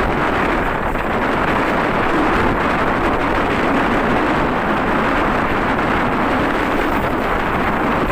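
Steady wind rush over the microphone of a Honda CB150R motorcycle on the move, with the bike's engine running under the wind noise.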